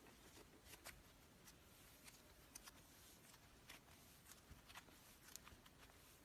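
Faint, scattered small crackles and clicks of cloud slime being pressed and handled, coming irregularly about a second apart.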